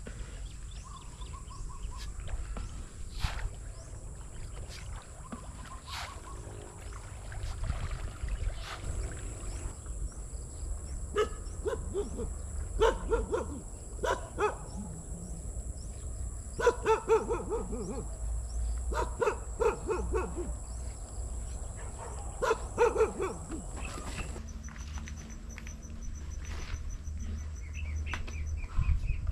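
Wind noise on the microphone, with an animal calling far off in several groups of short calls through the middle stretch.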